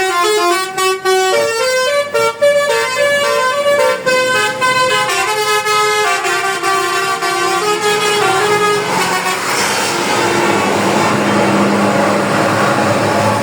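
Telolet basuri bus horn playing a quick melody of stepped notes. About nine seconds in, the melody gives way to a steady rushing noise.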